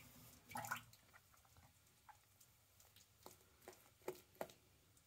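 Faint, wet squishes and drips of shaving-soap lather as a synthetic shaving brush is wetted and worked onto the face: one short splashy burst about half a second in, then scattered soft squelches.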